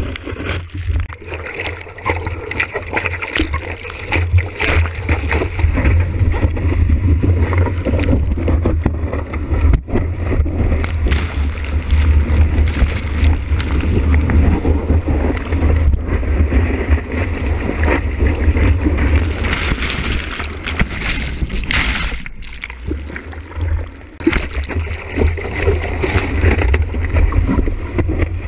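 Water rushing and splashing past a surfboard-mounted camera as the board rides through breaking whitewater, over a heavy, steady rumble of wind on the microphone. Sharp splashes of spray hit throughout, with a short lull about three-quarters of the way in.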